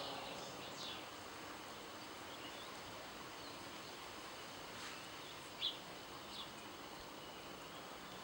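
Steady outdoor background hiss with a few short, high bird chirps; the clearest comes a little past halfway.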